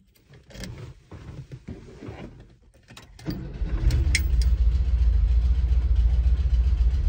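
The keys rattle and click in the ignition of a 1974 VW Bay Window Bus. About three seconds in, its air-cooled flat-four starts and settles into a steady idle.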